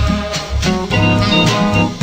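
Upbeat swing-jazz background music with a walking bass line and a steady beat.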